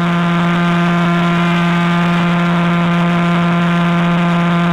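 Radio pulses of the millisecond pulsar PSR J0437-4715 converted to audio: a loud, steady buzzing tone pitched at its spin rate of about 174 pulses a second.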